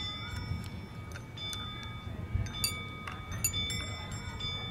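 Metal wind chime tinkling, its rods struck irregularly every fraction of a second and ringing on at the same few pitches. A low rumble runs underneath.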